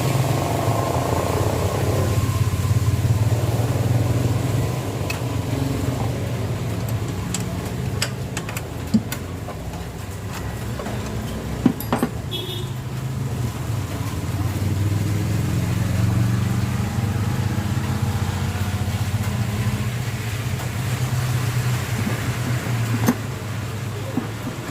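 A steady engine-like drone, with a few sharp metallic clicks and taps from hand tools working on bolts.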